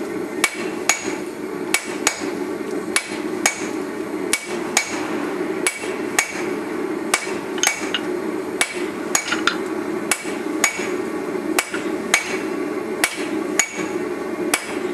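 Hammer blows on a hot steel-and-wrought-iron billet against an anvil, about one or two a second with a bright metallic ring, setting a forge weld. A steady low hum runs underneath.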